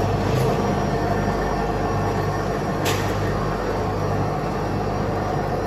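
Automatic food packing line running: a steady mechanical hum and rumble of conveyors and machinery, with one sharp click about three seconds in.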